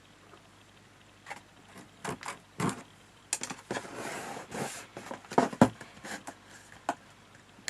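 Cardstock and craft tools being handled on a table while a paper box is glued together: a run of light taps and clicks, with a short rustling scrape of card about four seconds in.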